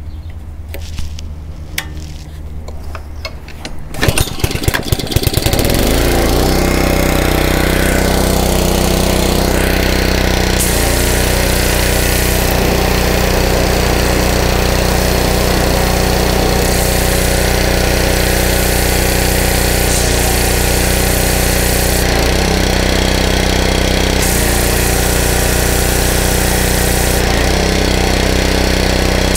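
Pressure washer's Honda GC160 single-cylinder engine starting about four seconds in and settling into a steady, even run, with no surging now that the carburetor has been cleaned. The hiss of the spray wand starts and stops several times over the engine.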